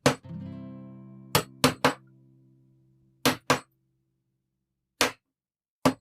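Sharp knocks in groups of two or three, with a chord ringing and slowly fading after the first knock, then a short stretch of silence.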